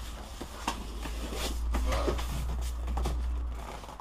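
A large cardboard box being handled and turned over: cardboard scraping and rubbing, with a few knocks. Under it runs a low steady hum that cuts off near the end.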